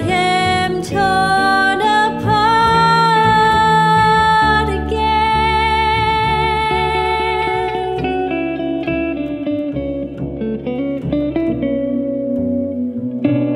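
A woman singing held, bending notes over plucked upright double bass and an archtop electric guitar. About eight seconds in the voice stops, leaving the guitar and bass playing on.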